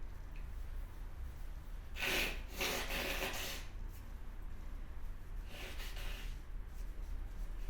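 A sneeze about two seconds in, running straight into a long breathy blast, then a shorter breathy sound about six seconds in.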